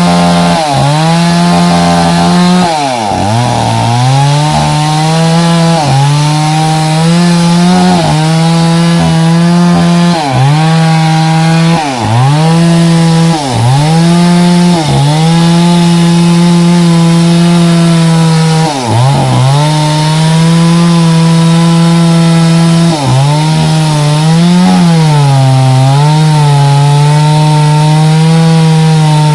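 Two-stroke chainsaw running at high revs while cutting into a thick mahogany trunk. Its note drops and climbs back again and again every second or two as the chain bites and bogs under load.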